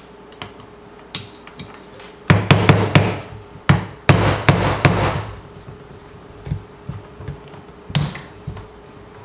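Quick runs of sharp metal taps on the end of a screwdriver seated in a stuck power-valve bolt on a Yamaha YZ250 two-stroke cylinder, jarring the threads loose so the bolt won't strip. One burst comes about two seconds in, another about four seconds in, and a single tap near the end.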